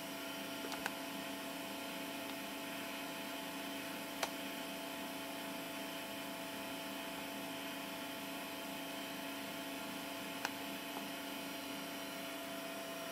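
Steady electrical hum with hiss and a few constant tones, broken by three short sharp clicks: about one second in, about four seconds in, and near the end.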